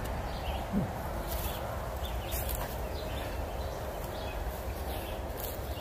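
Footsteps crunching on dry leaf litter and dirt along a woodland trail, at a steady walking pace of about one step a second.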